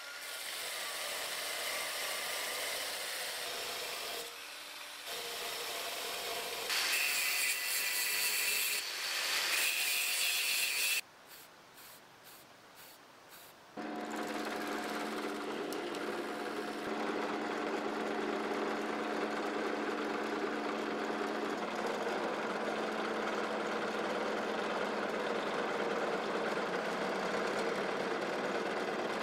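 Rotary wire brush wheel scouring rust off a billhook blade clamped in a vise, with a noisy, uneven scrubbing. After a few quieter seconds of short pulses, a drill press motor runs steadily with a buffing wheel in its chuck as the blade is polished against it.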